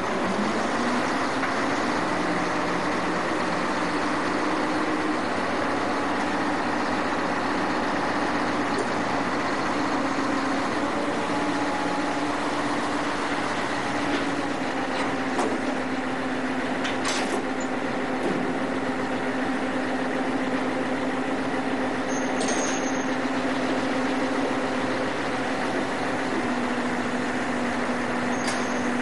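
Ship's engine running steadily under a constant rush of noise; its pitch rises about a second in and then holds.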